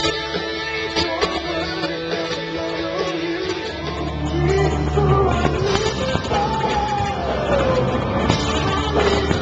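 Live band playing with electric guitar, a sung melody line and a heavy bass part that comes in strongly about four seconds in.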